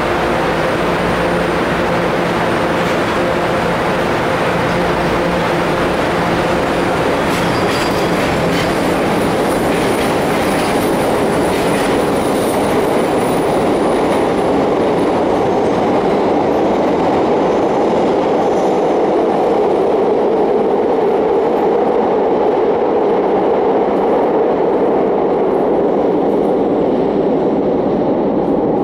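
Morrison-Knudsen 3200-series CTA subway train pulling out of an underground station. A steady hum gives way to clicking wheels and a high squeal as it gets moving, then a steady rumble carrying through the tunnel as it draws away.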